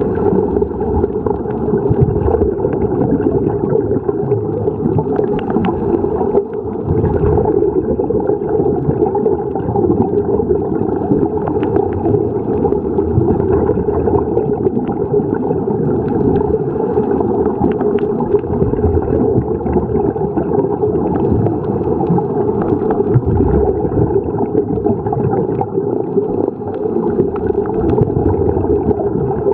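Steady, muffled underwater bubbling and rushing from scuba divers' exhaled regulator bubbles, heard through a camera's waterproof housing, with small clicks throughout.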